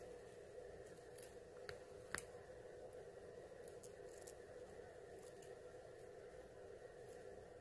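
Faint clicks and scratches of metal claw nail covers combing through long hair, over a steady low hum. One sharper click comes about two seconds in.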